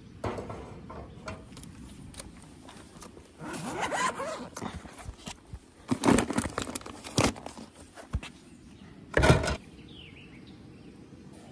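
Camp-cooking gear being handled: rustling and rummaging in a soft-sided bag, with scrapes and several sharp knocks and clatters, the loudest about six and nine seconds in.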